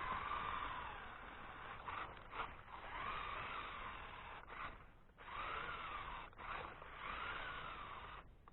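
Electric motor and gearbox of an RC 4x4 rock crawler whining, the pitch rising and falling in arcs with the throttle, cut by several short pauses.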